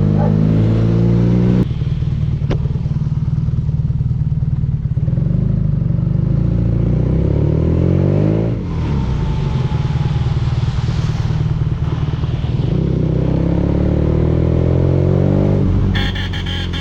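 BMW R nineT's air/oil-cooled boxer twin, heard through an Akrapovic exhaust, accelerating hard with its pitch climbing in each gear. The pitch drops sharply at the upshifts, about two seconds and eight and a half seconds in. The throttle is eased near the end.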